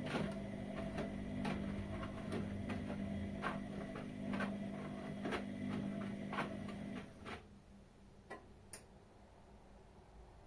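Whirlpool washing machine running with a steady hum and sharp clicks about once a second; the hum stops about seven seconds in, and two more clicks follow.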